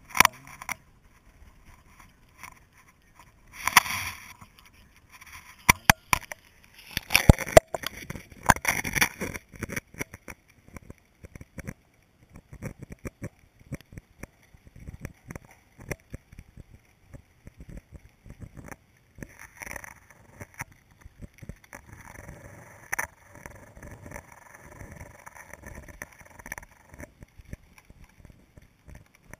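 Knocks, clicks and rubbing picked up underwater by a GoPro Hero 2 in its sealed housing as it goes down on braided line beneath lake ice. Clusters of louder knocks come in the first ten seconds, then sparser ticks, with a faint hiss around the twenty-second mark.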